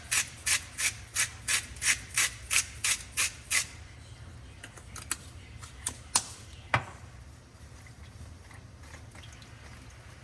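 Rhythmic rasping, scraping strokes, about three a second, that stop a little over three seconds in, followed by a few light clicks and knocks.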